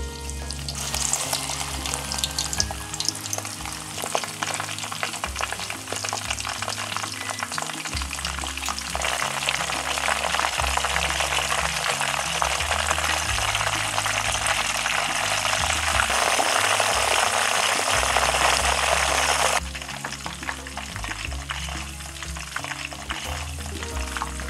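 Butterbur shoots (fukinoto) sizzling as they simmer in oil in a pot: a steady frying crackle, heavier through the middle stretch and dropping off sharply about twenty seconds in.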